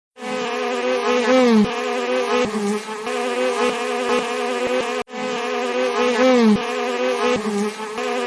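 Bee buzzing: a steady drone that wavers slightly in pitch. It plays twice, with a brief break about five seconds in.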